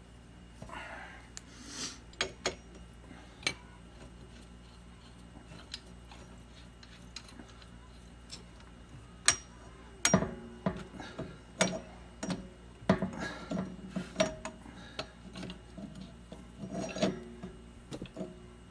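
Metal tools and pipe fittings being handled during plumbing work: sharp clinks, knocks and scraping. They are scattered at first and come thick and fast from about ten seconds in.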